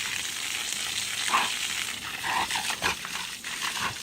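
Steady hiss of water spraying from a hose, with a few short irregular sounds between about one and three seconds in as the dog plays in the spray.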